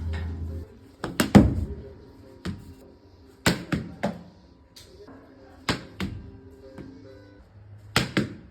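Background music with held tones, over a series of sharp knocks, some coming in quick pairs, about every one to two seconds.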